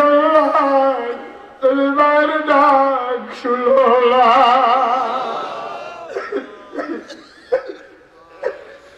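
A man's voice into a microphone in long, drawn-out wailing cries with a wavering pitch, three held lines in the first five seconds or so, then short sobbing catches of breath in the last three seconds.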